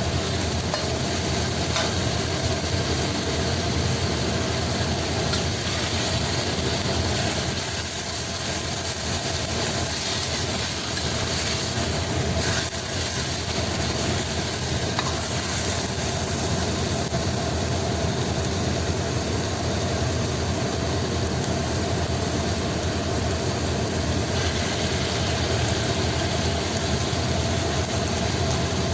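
Steady stovetop cooking noise: a constant low mechanical hum with an even hiss over it, from stir-fried noodles cooking in a wok.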